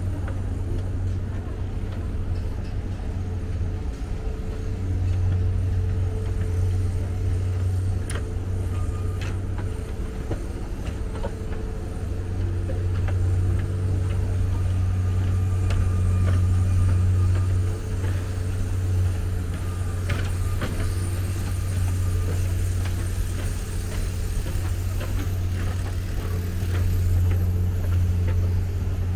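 Steady low rumble of road traffic, rising and falling a little, with a few faint ticks here and there.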